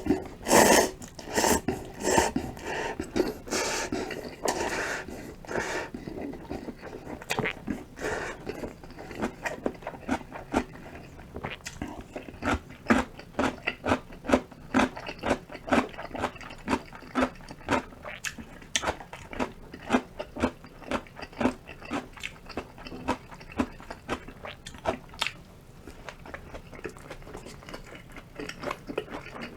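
A person eating Shin Ramyun cup noodles and rice balls. A few loud, noisy mouthfuls come in the first five seconds, then steady chewing at about two chews a second, which eases off near the end.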